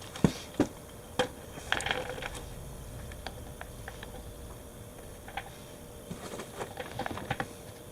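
Irregular clicks and light knocks of parts and tools being handled during an ATV oil change, with a few sharper knocks in the first couple of seconds and another run of clicks near the end.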